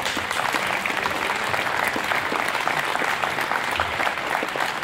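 Audience applauding: dense, steady hand-clapping from a crowd.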